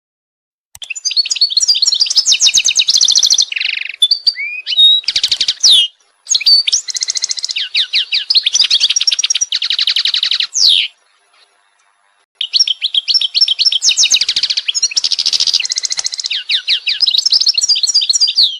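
A songbird singing in long phrases of rapid trills and chirps, high-pitched, with a short pause about eleven seconds in.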